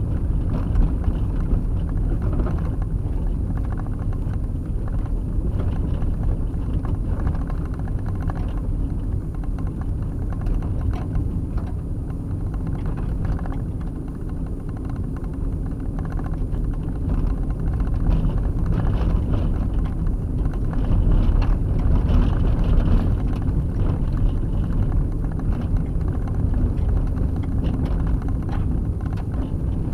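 Vehicle driving on a dirt and gravel road, heard from inside the cab: a steady low rumble of engine and tyres with scattered small knocks and rattles.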